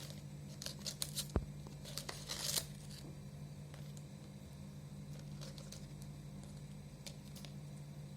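A few quick crinkling, tearing rustles of packaging being handled in the first three seconds, then only a few faint ticks over a steady low hum.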